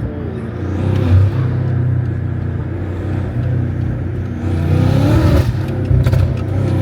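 BMW F90 M5's twin-turbo V8 running through a catless straight-pipe exhaust, loud at idle and revved twice, about a second in and again around five seconds in.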